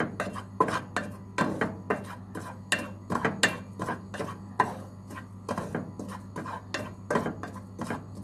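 A spoon scraping and stirring dry ground spices around a metal pan in quick repeated strokes, about two to three a second, over a steady low hum. The spices are being dry-roasted over low heat and stirred constantly so they don't burn.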